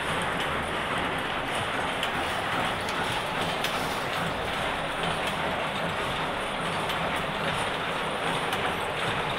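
Grass-mat weaving machine (power loom for tatami-style grass mats) running, a steady mechanical clatter with faint repeated clicks.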